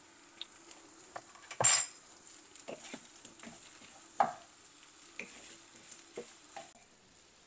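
Wooden spatula stirring and scraping fried rice around a non-stick frying pan, with some sizzling from the pan. Irregular scrapes and knocks, the loudest about a second and a half in and again about four seconds in.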